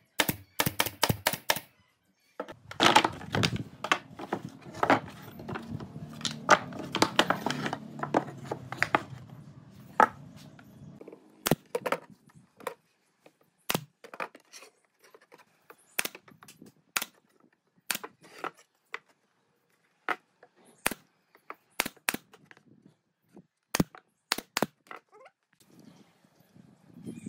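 Pneumatic brad nailer shooting nails into pine boards: sharp clicks, many in quick succession over a low steady hum for the first ten seconds or so, then single shots and knocks a second or two apart.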